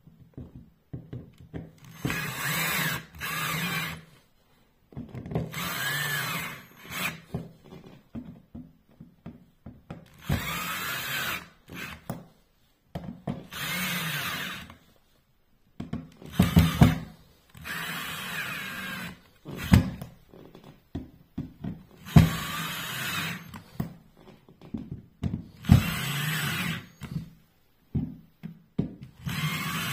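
Cordless drill-driver driving screws through a metal patch plate into its sealant bed, one screw after another: about ten short runs of the motor, each a second or two long, with brief pauses and sharp clicks in between.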